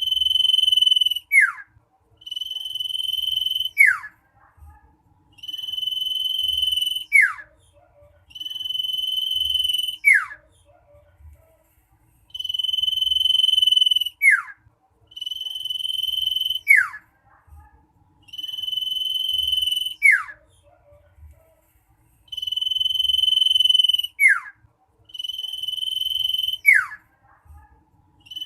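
Common iora (cipoh) singing loudly and insistently: the same phrase over and over, about every three seconds, a long steady high whistle that ends in a quick downward swoop.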